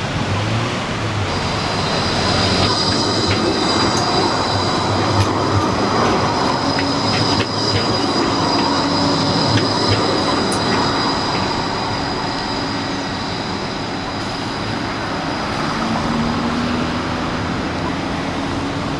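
Light-rail tram running round a tight curve, its wheels squealing on the rails in two high, steady tones over the rumble of the passing tram. The squeal sets in about a second in and dies away about three-quarters of the way through.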